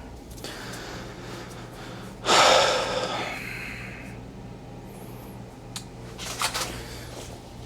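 A heavy exhale close to the microphone, a loud rush of breath about two seconds in that trails off over a second or so, over a steady low hum.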